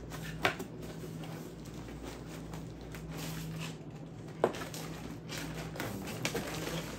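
Cardboard boxes and plastic packaging rustling and shifting as items are handled inside a shipping box, with two sharp knocks, about half a second in and again about four and a half seconds in. A steady low hum runs underneath.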